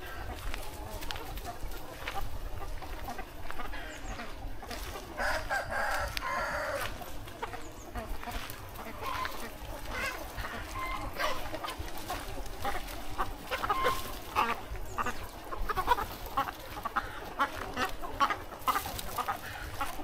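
A large flock of free-range chickens clucking steadily with many short calls, and a rooster crowing once about five seconds in.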